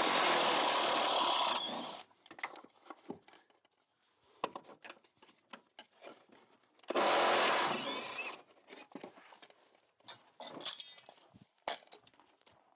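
A handheld power tool runs in two bursts, about two seconds and a second and a half long, during work on the car's rear suspension. Metal clinks and knocks from tools and parts being handled fall between the bursts.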